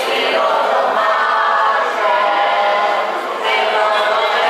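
A choir singing unaccompanied, voices holding long notes together.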